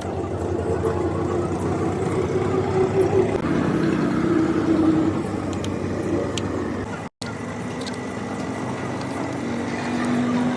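Steady motor-vehicle engine noise with a low, shifting hum, broken by a momentary dropout about seven seconds in.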